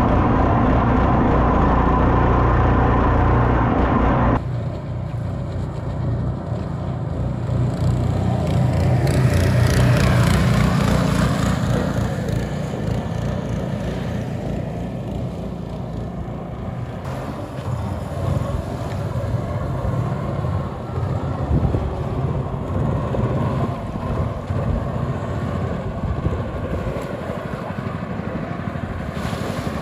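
Four-stroke longtail boat motor running flat out, heard close on board for the first four seconds or so, then from the shore as the boat passes, with a hiss of spray loudest a few seconds later. It will not rev any higher: the governor is tripping and pulling back the throttle.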